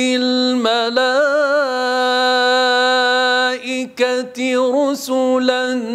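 A male Quran reciter's voice in slow melodic recitation, holding one long steady note for about three and a half seconds, then a short break near four seconds followed by quick ornamental turns in pitch.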